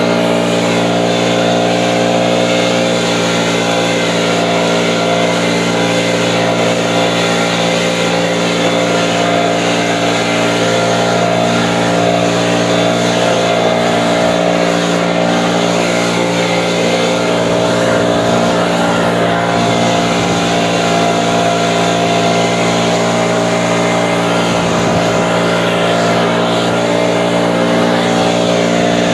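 Motor-driven blower running steadily while blowing snow: an unchanging engine tone with a rush of air over it.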